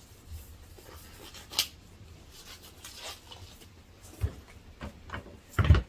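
Handling noises: rubbing and rustling with a few sharp clicks, and a louder knock near the end.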